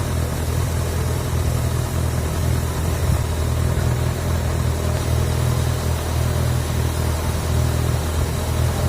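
Honda CB1000R's inline-four engine idling steadily, warmed up near the temperature at which its radiator fan cuts in during a cooling-system check.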